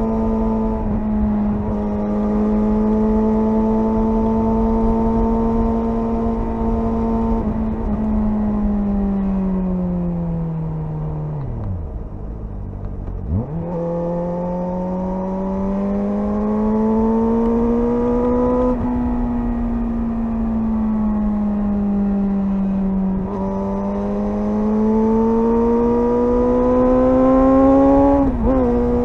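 Suzuki GSR 600's inline-four engine running under way, holding fairly steady revs that rise and ease gently. About ten seconds in the revs sink away to a low point and then snap back up. A few brief notches in pitch mark quick changes later on.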